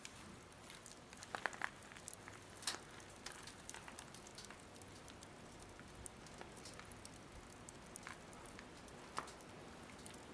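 Firewood burning in a secondary-combustion fire pit, crackling with scattered sharp pops over a faint hiss; the loudest pops come about a second and a half in, near three seconds, and near the end.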